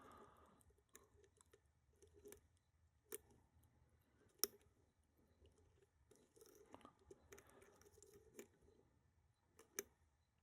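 Faint scraping and clicking of a metal lock pick working the pins of a pin-tumbler challenge lock held under light tension, with a few sharper clicks standing out.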